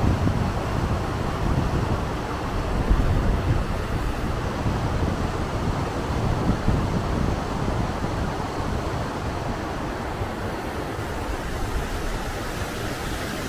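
A fast-flowing river rushing over rocky rapids, a steady noise of white water, with wind buffeting the microphone.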